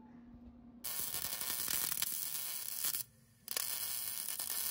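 Wire-feed welder arc crackling and sizzling steadily as a bead is run along a steel rock slider. It starts about a second in and breaks off for a moment about three seconds in before picking up again.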